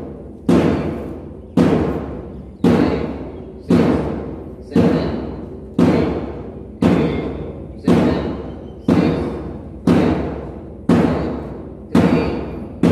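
Drums struck in a steady beat, about one stroke a second, each stroke ringing and fading before the next. The beat keeps time for a mass PT exercise routine.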